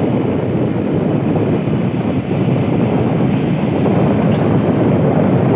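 Steady, loud rumble of a motorbike ride: the engine running under wind buffeting the microphone.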